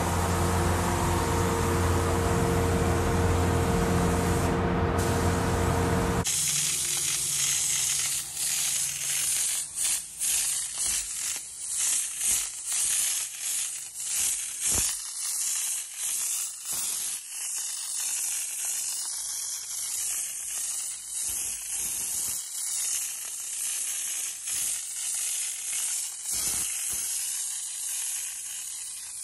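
A paint booth's steady ventilation hum under the hiss of a gravity-feed spray gun laying down paint. About six seconds in it cuts to a hissing spray gun firing in short, uneven bursts as it applies a black textured coating.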